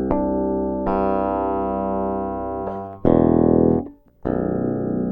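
Ibanez SR-3006E six-string bass guitar through a Bartolini NTBT-918 preamp, recorded direct with no effects: plucked notes struck and left to ring. A louder note about three seconds in is muted abruptly before the next note is played and sustains.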